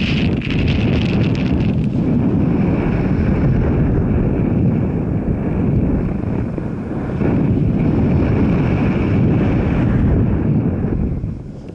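Wind buffeting the microphone over the steady drone of a moving vehicle, easing briefly near the end.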